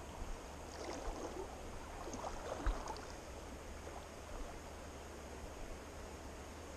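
Shallow river water running and gurgling close by, with a stretch of louder splashing and gurgling between about one and three seconds in.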